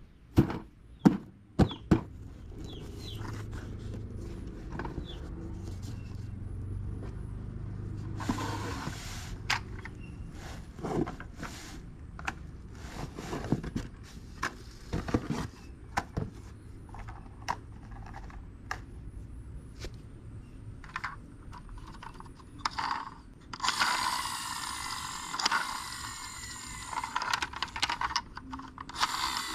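Toys and their plastic packaging being handled: irregular sharp clicks and knocks with short rustles, and a longer stretch of crinkling rustle near the end, over a steady low hum.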